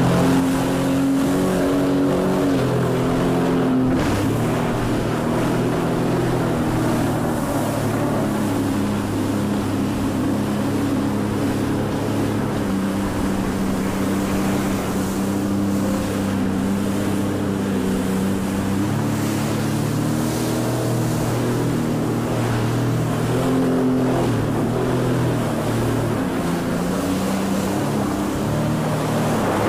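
Watercraft engine running at a near-constant pitch that shifts a few times, with wind and water noise on the microphone.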